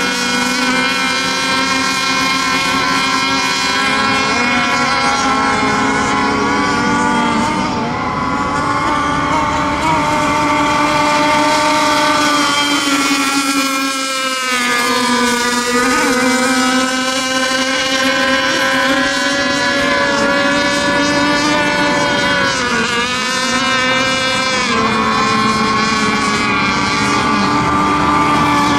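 Several radio-controlled racing boats running flat out, a high engine note from more than one boat whose pitch dips and climbs again several times as the boats ease off through the turns and accelerate out.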